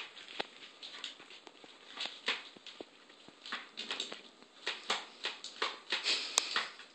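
A cat pawing and clawing at the plastic lid of a dry cat food container: irregular light taps, clicks and scratches of claws on hard plastic. The taps come more often in the second half.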